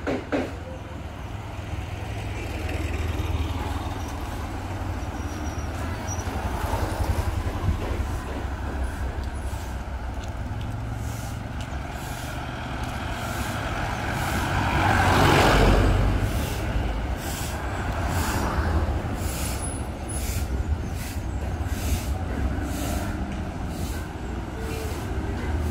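Heavy street traffic of trucks and buses with a steady engine rumble. Halfway through, one heavy vehicle swells up loud and fades as it passes close.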